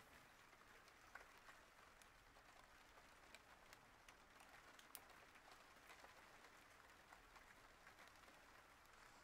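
Near silence: faint room hiss with a few soft, scattered ticks.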